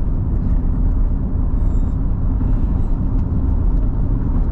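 A car's road and engine noise heard from inside the moving cabin: a steady low rumble.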